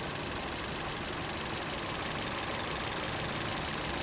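Chevrolet Aveo's Ecotec four-cylinder petrol engine idling steadily, heard with the bonnet open.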